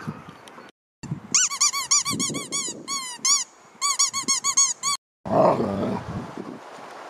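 Rubber squeaky dog toy squeezed by hand in quick runs, each squeak a short rise-and-fall whistle, several a second. The squeaks stop near the end and a rougher, noisier sound follows.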